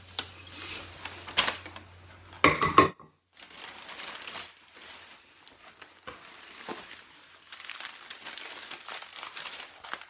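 Packaging rustling and crinkling as wrapped spinning-wheel parts are unpacked and handled, with a few sharp clicks and a brief louder knock about two and a half seconds in.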